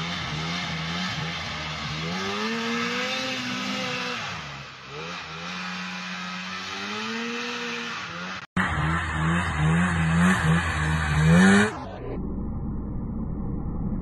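Vintage two-stroke snowmobile engine revving hard, its pitch rising and falling several times as the sled pulls through deep snow and wheelies. There is an abrupt cut about eight and a half seconds in to louder, quicker revving, then another cut near the end to a steadier engine sound.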